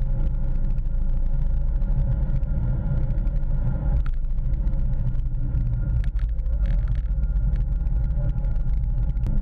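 Seat Leon Cupra 280's turbocharged 2.0-litre four-cylinder engine driven at racing speed, heard from inside the cabin: a steady deep drone with road and wind noise and a few brief sharp knocks.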